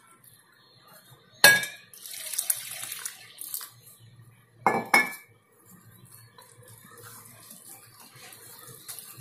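A wire whisk beating gram-flour batter in a glass bowl while water is poured in from a glass jug. There is a sharp clink of glass and metal about a second and a half in, a splashing pour just after it, and two more clinks near the middle. Softer whisking follows.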